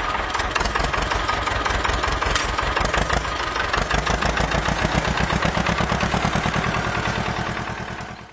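Tractor engine running with a steady, rhythmic chug, fading out at the end.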